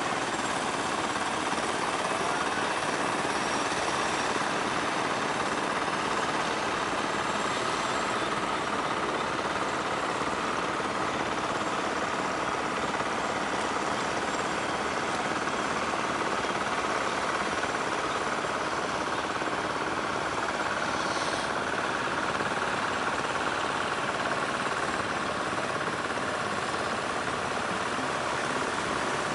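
Engines of several wooden fishing boats running steadily with a rapid knocking chug as the boats motor in under way.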